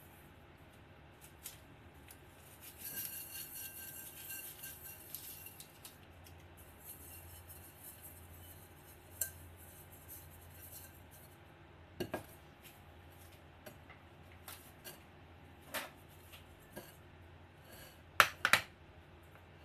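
Handling of a rice cooker's inner cooking pot: a scratchy rustle for a couple of seconds near the start, then scattered light knocks and clinks against the pot, the loudest two close together near the end.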